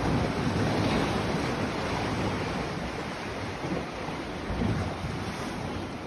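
Surf breaking against concrete breakwater blocks and rocks, a steady rushing noise, with wind buffeting the microphone in uneven low rumbles.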